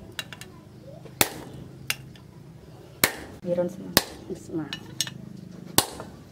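Hammer striking a handled punch to drive holes through a steel cleaver blade made from leaf spring: four sharp metallic strikes a second or two apart, each ringing briefly, with a few lighter taps between.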